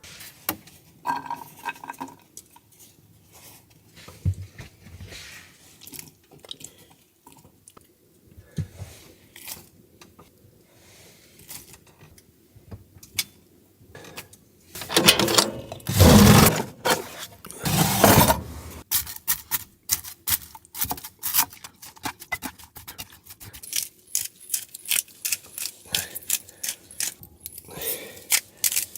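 Small objects being handled close up: scattered clicks, taps and knocks, with a louder stretch of rustling and scraping about halfway through, then quick rapid clicking.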